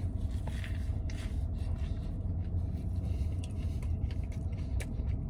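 Steady low rumble of an idling vehicle, heard inside the truck cab, with faint scattered clicks of a man biting and chewing a sandwich.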